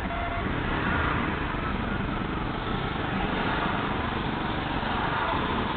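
Steady traffic and engine noise inside a car moving at walking pace in city traffic, picked up by a dashcam's built-in microphone.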